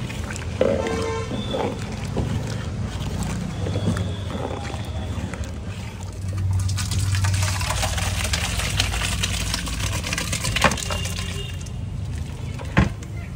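Street-side cooking ambience: a steady low rumble, with a hissing rush through the middle and a few sharp metal clanks near the end as hot curry is tipped from a large pot into a steel bowl.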